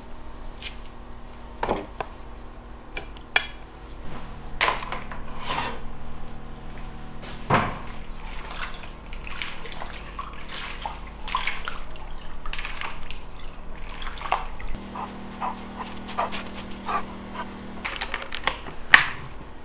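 Food preparation over plastic buckets of marinade: clicks of a metal garlic press, then hands moving food in the liquid with small splashes and scattered knocks of the plastic buckets, the sharpest knock near the end.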